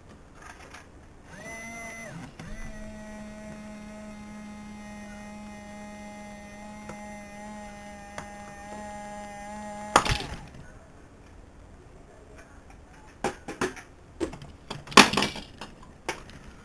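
Small toy electric motor and plastic gearbox whining steadily for about eight seconds, then stopping with a loud click. A few sharp knocks and clatters follow near the end as the toy mechanism moves.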